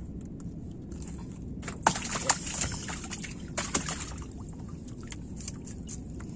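Water sloshing and splashing against a small fishing boat, with two louder splashy stretches about two and three and a half seconds in, over a steady low background rumble.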